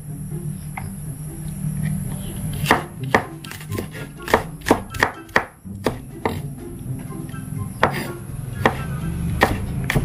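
Wide-bladed kitchen knife chopping red onion on a wooden chopping board: a dozen or so sharp knocks of the blade against the board, in irregular runs. Background music plays underneath.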